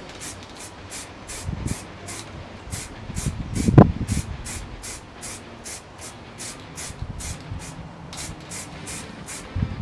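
Aerosol can of grey primer spraying with a hiss, with a louder thump about four seconds in.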